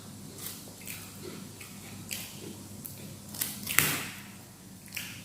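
Close-miked eating of gado-gado: wet chewing and mouth sounds broken by short sharp clicks and crunches, the strongest a little under four seconds in.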